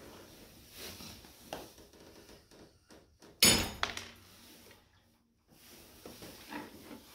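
One sudden loud crack about three and a half seconds in: a cooling fin snapping off the Royal Alloy GT125's variator fan plate as a wrench is forced against the stuck variator nut. Faint clicks and tool handling come before it.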